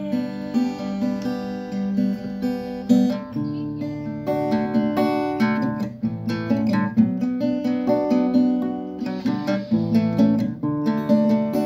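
Steel-string acoustic guitar strummed and picked in a steady rhythm, chords ringing.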